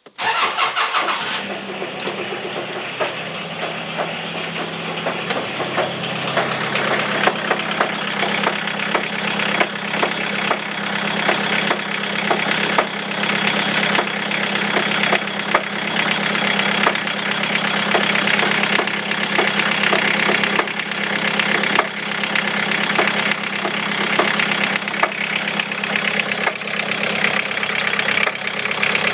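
Toyota 3C-TE four-cylinder turbodiesel starting up and settling into a steady idle, with a rapid, regular knock from the piston area that carries through the whole engine.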